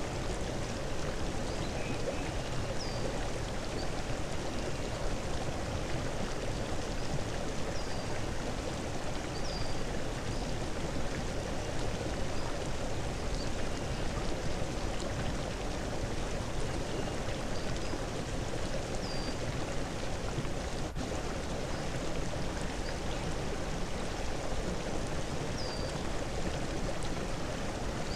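Steady rushing noise like flowing stream water, with faint short high chirps every couple of seconds.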